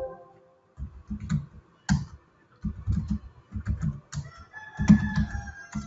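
Keys typed on a computer keyboard in quick bursts of clicks, a command being entered. A thin, high tone is held for about a second near the end.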